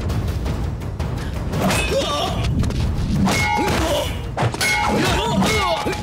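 Action-film fight soundtrack: background music under repeated heavy thuds and crashing hits from stick and rod blows.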